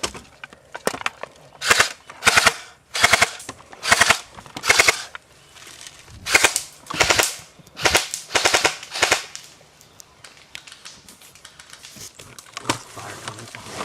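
Airsoft guns firing about ten short full-auto bursts, each a quick rattle of shots about half a second long, spread over the first nine seconds, followed by lighter scattered clicks.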